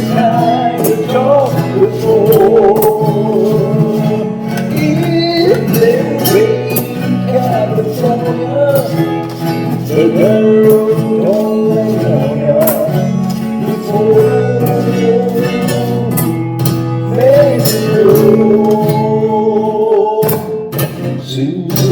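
Music: a strummed acoustic guitar with a melody line moving over a steady low backing, an instrumental stretch of the song.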